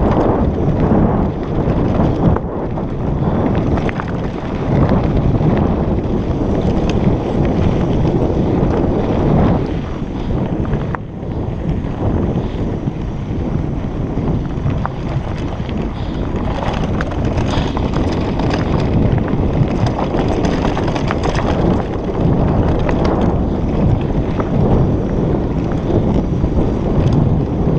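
Mountain bike rolling down a dirt trail: steady wind rush over the camera microphone with tyre rumble over the ground and scattered small clicks and rattles from the bike.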